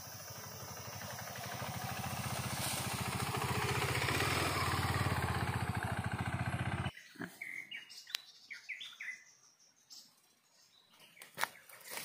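A motorcycle engine running with an even pulse, growing louder over several seconds and cut off abruptly about seven seconds in. Then a few short bird chirps and some sharp clicks.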